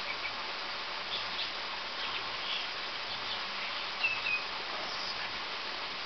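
A few faint, short bird chirps, with a brief whistle about four seconds in, over a steady hiss.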